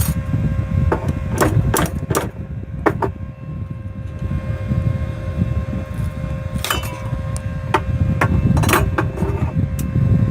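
Irregular metal knocks and clicks as a tool works the stubborn side cover plate off a shear beam load cell, in two clusters, over a steady low rumble.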